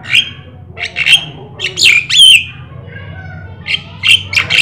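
Caged Javan myna (jalak kebo) singing in full voice, a series of loud, harsh squawks and whistled notes in short groups: one at the start, several around one and two seconds in, and another burst near the end.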